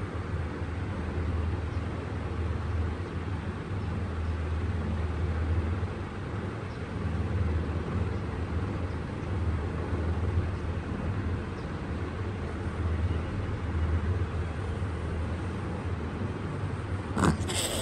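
Steady low background rumble, and near the end a white Persian cat gives a short hiss.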